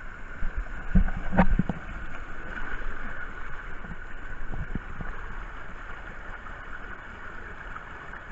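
Water rushing steadily down a fibreglass water slide. A few heavy thumps come about a second in, with lighter knocks over the next few seconds.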